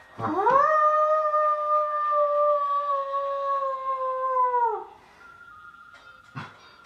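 A person doing a wolf howl impression with their voice: one long howl that sweeps up quickly, holds nearly level for about four seconds and drops away at the end. A short knock follows about a second and a half later.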